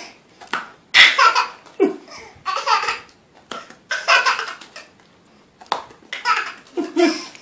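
Baby laughing hard in a string of short bursts with brief pauses between them.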